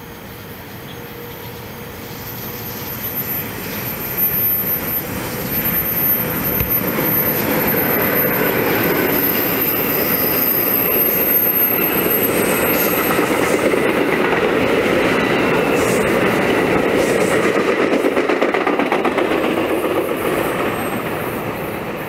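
NJ Transit commuter train of double-deck MultiLevel coaches approaching and passing at speed. The sound of wheels on rails builds steadily over the first eight seconds, with a thin high whine during the approach, then holds as a loud, even rumble of wheels and rail noise as the coaches go by, easing a little near the end.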